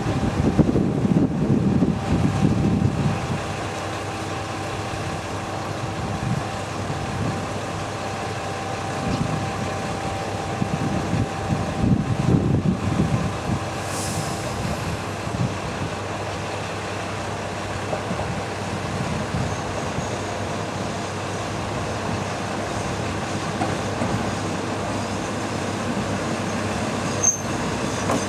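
Tsugaru Railway Tsugaru 21 diesel railcar standing with its engine idling, a steady hum; a louder low rumble fills the first few seconds. Toward the end a second railcar draws in on the next track.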